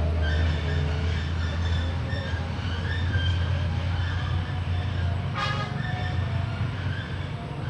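A train passing close by: a steady low rumble from the train, with scattered short high tones and one short sharp sound about five and a half seconds in.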